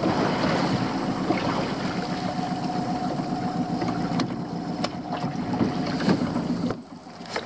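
Small Honda outboard motor running steadily at low speed, a constant hum. Near the end it goes briefly quieter for about half a second, then picks up again.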